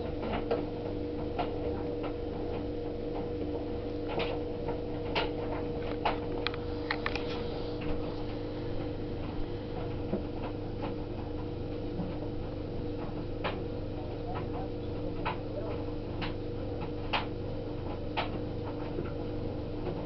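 Bosch Classixx vented tumble dryer running at the start of a 60-minute timed cycle: a steady motor hum with irregular sharp clicks as the load turns in the drum.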